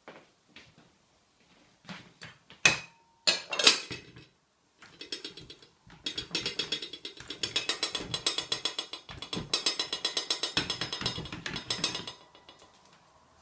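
Ceramic dishes clunking on a black plastic raised dog bowl stand, sharpest between about two and a half and four seconds in. From about six seconds in until near the end comes a run of rapid clicking, about six clicks a second, as the stand's arms are adjusted around a ceramic bowl.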